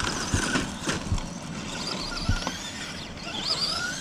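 Electric RC truck motor whining, its pitch rising and falling as the throttle changes. A few short thumps come in the first half, over a rushing noise.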